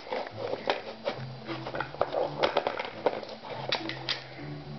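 Dachshund chewing and biting a plastic cat mouse chaser toy: irregular sharp clicks and crunches, with a low hum that comes and goes underneath.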